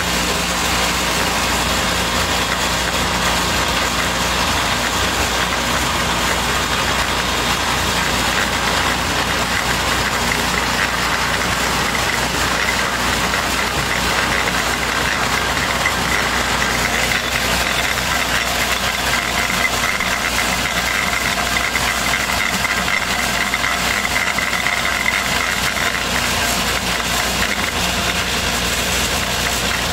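Animal-feed pellet mill running steadily under load as it pushes out pellets, a constant mechanical drone with a rattle. A thin steady whine comes in for part of the middle.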